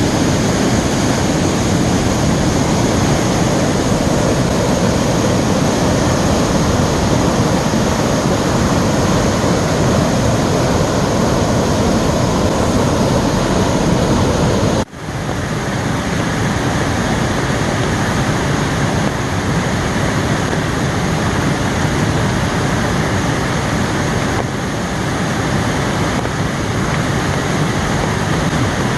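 A waterfall swollen with heavy rain, its water pouring down in a loud, steady rush. The sound breaks off for an instant about halfway through, then carries on.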